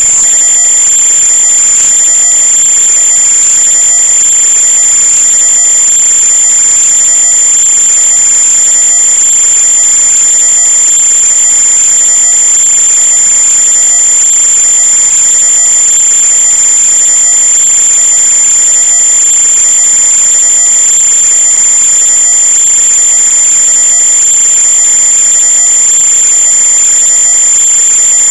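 A loud, steady high-pitched whine over hiss, unchanging throughout.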